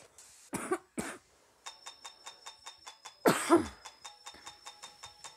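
Two short bursts of noise, then a fast, even ticking beat of about five ticks a second over a steady high tone. About three seconds in, a loud cough-like human voice sound falls in pitch over it.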